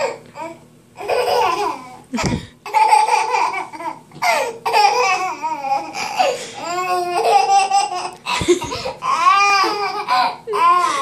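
Baby laughing and squealing in repeated bursts of high, bending pitch, with babbling between, and two brief low thumps.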